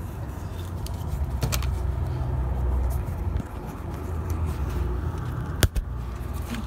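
Low rumble of hands handling the camera close to its microphone, with faint rustles and one sharp click about six seconds in.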